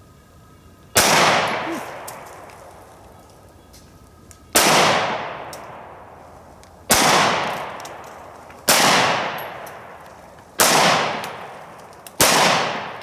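Ruger LC9s 9mm compact pistol fired six times in slow succession, the shots about two to three seconds apart, each a sharp report followed by a long fading echo.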